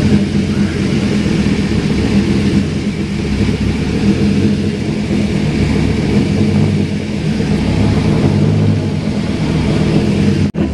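Twin-turbo Dodge Viper V10 idling steadily with a low rumble, cutting off suddenly near the end.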